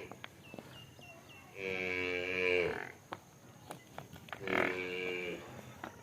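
Water buffalo mooing: two calls of about a second each, a couple of seconds apart, following the end of an earlier call right at the start.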